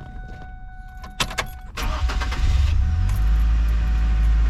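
2010 Ford Ranger's 2.3-litre four-cylinder engine being started after its oil change: a few clicks a little over a second in, the starter cranks briefly, the engine catches and runs up, then settles into a steady idle about three seconds in.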